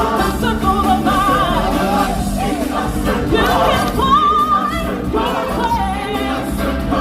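Live stage-show music with voices singing together, held notes with vibrato over a steady bass accompaniment.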